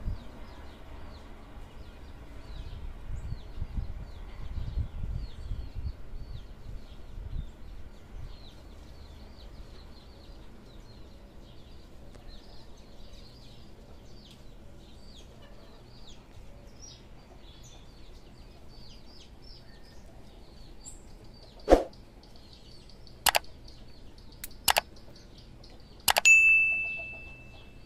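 A freight train's low rumble fading away over the first several seconds as it leaves, with small birds chirping throughout. Near the end come a run of sharp clicks about a second and a half apart and a ringing bell-like ding from a subscribe-button animation.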